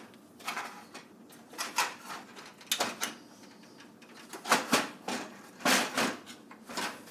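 Irregular knocks, clicks and rattles of a PC case's top cover being worked loose and lifted off, the loudest knocks about four and a half and six seconds in.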